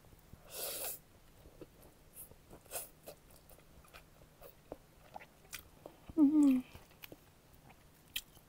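Close-miked chewing of spicy instant ramyun noodles: soft wet clicks and smacks of the mouth throughout, with a noisy breath near the start. About six seconds in comes a short hummed "mmm" of enjoyment that falls in pitch, the loudest sound.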